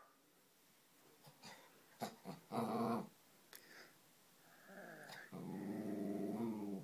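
Small white terrier growling twice: a short growl about two and a half seconds in, then a longer one of about a second and a half near the end.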